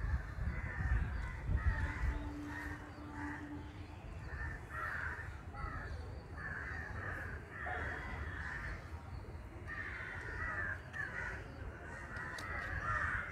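Crows cawing again and again, call after call, over a low rumble.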